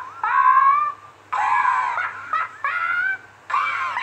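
A very high-pitched voice letting out about four squealing cries, each rising in pitch, done as a cartoon pony's laugh. A faint low hum runs underneath.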